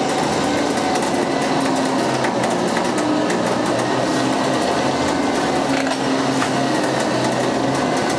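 A winch motor running steadily under load, hauling a car forward on its cable.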